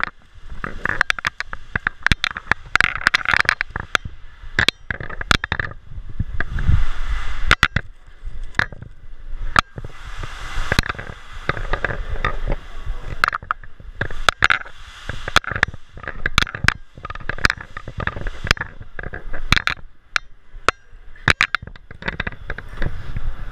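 Handling noise on a carried camera: irregular sharp clicks and knocks with rustling in between.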